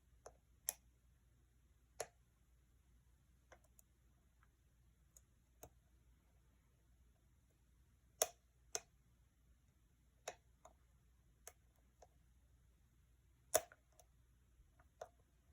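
Small, irregular clicks of a lock pick and tension wrench working inside a challenge lock, roughly one a second. Two louder clicks come about eight seconds and thirteen and a half seconds in.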